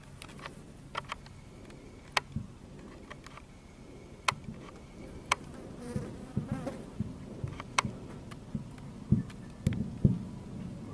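A steady buzzing hum under sharp clicks every second or so, with dull low thumps coming more often in the second half.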